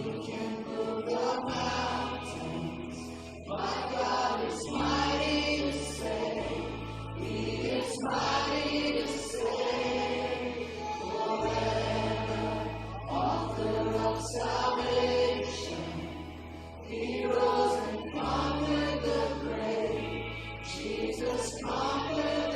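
Church worship music: a choir or congregation singing over live accompaniment, with low bass notes held and changing every second or two.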